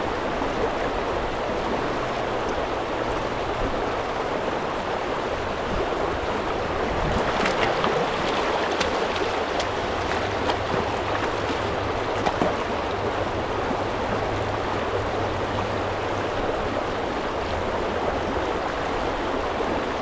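Steady rush of shallow river current running around a wader's legs, with a few short splashes near the surface about seven and a half seconds in and again around twelve seconds.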